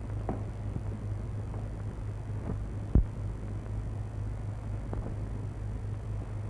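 Steady low hum with faint crackles and clicks, the noise of an old 1950s film soundtrack, with one sharp pop about three seconds in.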